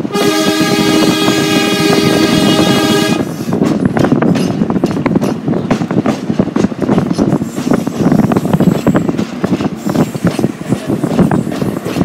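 Train air horn sounding a steady multi-note blast for about three seconds and cutting off sharply, followed by the rumble and rapid clatter of train wheels running over the rails.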